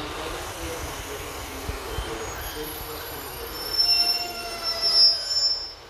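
Class 143 Pacer diesel railbus passing close by with its wheels squealing against the rails over a steady rumble. The high-pitched squeals start about two seconds in, are loudest near the end, then cut off suddenly.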